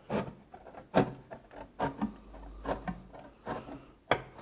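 Hand tin snips cutting through a sheet-metal gutter: a series of short sharp snips, about one a second, as the blades close stroke by stroke along the cut line.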